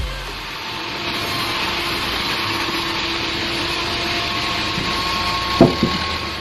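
Bandsaw cutting through a large log: a steady noise from the blade in the wood over a faint motor hum, with a short knock about five and a half seconds in.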